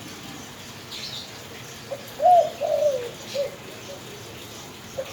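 Spotted dove cooing one phrase about two seconds in: a short note, two drawn-out coos, then a short closing note.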